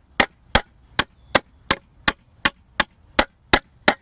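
Hammer driving nails into wooden boards with a steady run of sharp blows, about three a second.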